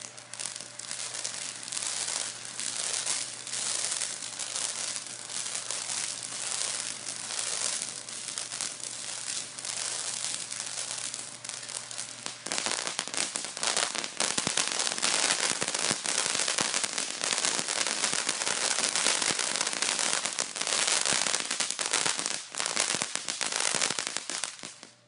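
Fireworks burning on the ends of a spinning staff, giving a dense, hissing crackle. It gets louder about halfway through and dies out suddenly near the end.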